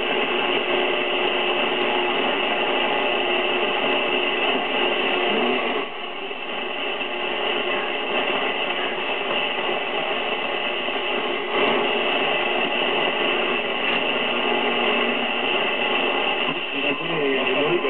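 Shortwave static hiss from the speaker of a Zenith Trans-Oceanic Royal 3000-1 transistor radio, tuned between stations around 12 MHz, with faint steady whistling tones in the noise. The hiss dips briefly about six seconds in.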